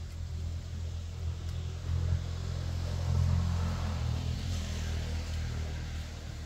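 A low, steady engine rumble that swells about two to four seconds in and then eases off.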